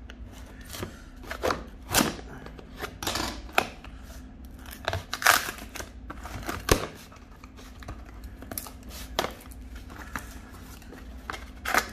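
Corrugated cardboard shipping box being cut and torn open by hand: irregular ripping, scraping and crackling noises, several of them sharp and loud, over a low steady hum.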